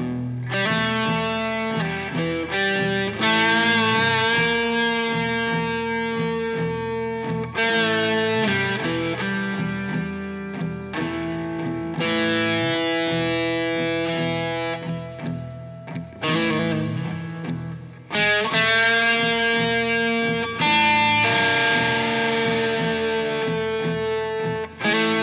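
Epiphone electric guitar noodling a slow blues lead: single picked notes and long held notes ringing out one after another.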